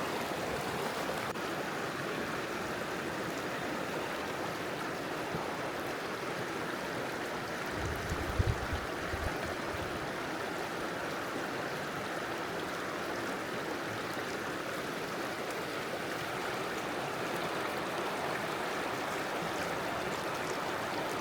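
River water rushing steadily. A few brief low thumps come about eight seconds in.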